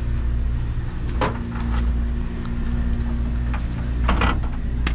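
Steady low machinery hum with a few short knocks and scrapes, about a second in and again near the end, as things are shifted about in a cramped space.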